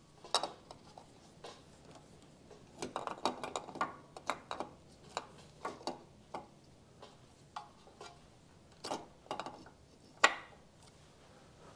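Irregular light metallic clicks and taps, heaviest about three to five seconds in, from a stator plate and its wires being handled and fitted onto the crankcase of a Yamaha AT-2 motorcycle engine.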